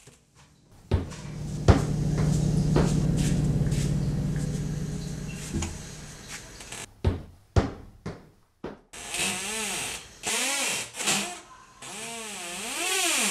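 Horror-film sound design: a low droning hum with two sharp hits at its start, fading away about six seconds in. Two more sharp hits follow, then several short stretches of wavering, warbling tones.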